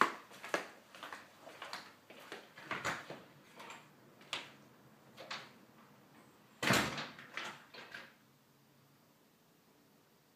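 A run of short, irregular knocks and clatters, the heaviest a thump about seven seconds in, stopping about eight seconds in.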